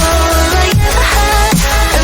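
Background electronic music with a heavy bass beat and repeated falling synth sweeps.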